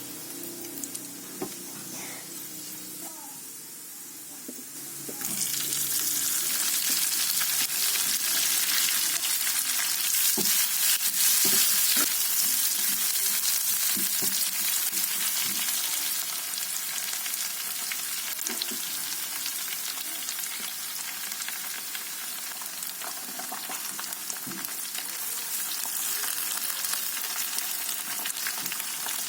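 Ingredients for kwetiau goreng stir-frying in hot oil in a pan. The sizzle starts suddenly and loud about five seconds in, then eases a little, with occasional knocks and scrapes of a spatula stirring.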